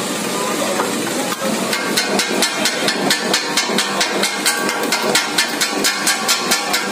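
Two flat steel blades chopping kothu parotta on a flat iron griddle: a fast, even clanging of steel striking the hot plate, about four strikes a second, picking up about two seconds in.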